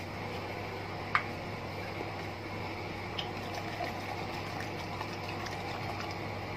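Paint thinner pouring from a plastic jug into a plastic measuring cup, over a steady low hum. A sharp click about a second in.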